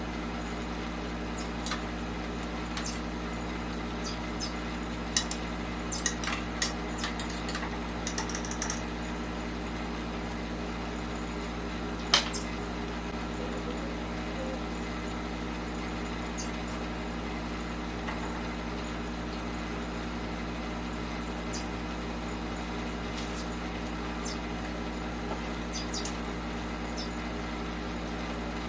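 A steady low electrical hum throughout, with a cluster of light clicks and clinks about five to nine seconds in and one sharper knock about twelve seconds in.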